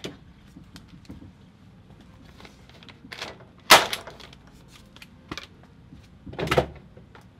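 Someone moving about a workshop: light shuffling and small taps, then a sharp knock about halfway through as a cardboard sign is hung on the pegboard wall. A duller, heavier thump comes near the end.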